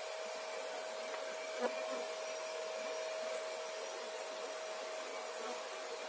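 Homemade bee vacuum running steadily as its hose sucks bees off the comb: a steady whine over a rushing hiss. A single click about a second and a half in.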